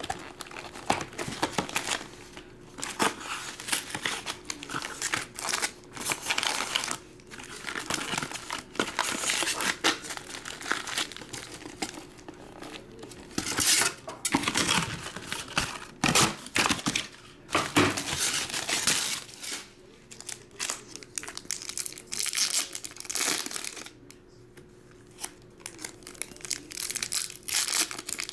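Foil trading-card pack wrappers crinkling and tearing as Topps Chrome hobby packs are handled and ripped open one after another, in irregular bursts with a short lull near the end.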